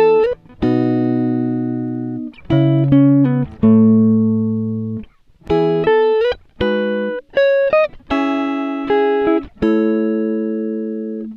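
Background music: guitar chords plucked one after another, each left to ring and fade, with short gaps between.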